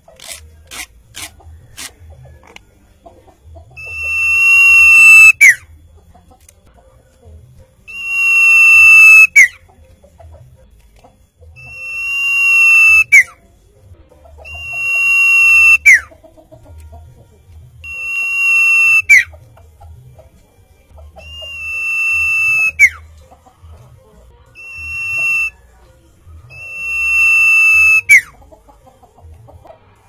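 Common iora (cipoh) singing a long clear whistle eight times, about every three to four seconds; each note swells in loudness, holds on one high pitch and then drops sharply at the end, one of them near the end shorter than the rest. A few faint ticks sound in the first two seconds.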